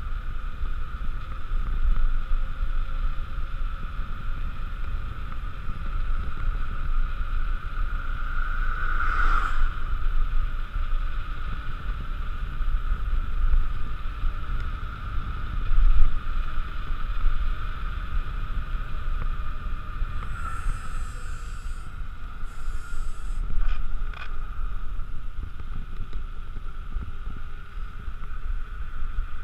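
Mountain bike coasting fast down a paved road: a constant low wind rumble on the camera microphone and a steady high whirr from the wheels on the tarmac. The whirr swells briefly about nine seconds in, and there are a few sharp clicks near the end.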